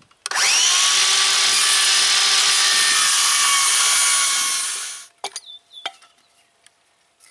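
Circular saw spinning up and ripping a 45-degree bevel along a dried black walnut board for about four and a half seconds, then winding down about five seconds in. A few sharp knocks follow.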